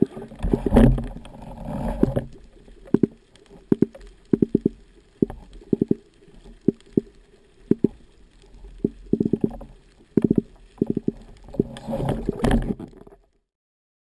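Underwater handling noise picked up by a camera mounted on a speargun: a string of sharp knocks and clicks, with bursts of bubbling and splashing near the start and again near the end. The sound cuts off abruptly about a second before the end.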